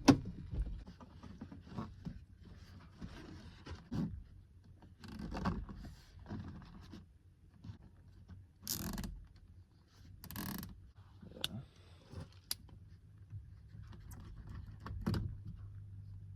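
Scattered handling noises: scrapes, light knocks and clicks, with two longer rasping noises about nine and ten and a half seconds in, over a low steady hum.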